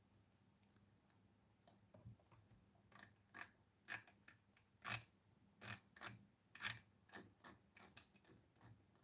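Faint, irregular clicks of a laptop's controls as a document is scrolled, some eighteen short clicks beginning about two seconds in.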